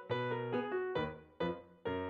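Background music: a keyboard tune of struck notes, each dying away, with a new note about every half second over low bass notes.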